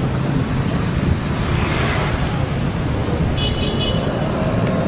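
Street traffic noise: a steady rumble of road vehicles, swelling as one passes about two seconds in, with a brief high-pitched tone a little after three seconds in.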